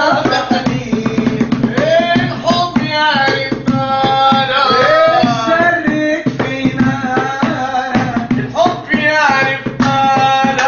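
Singing with a gliding, ornamented melody over a hand drum beating out a steady rhythm.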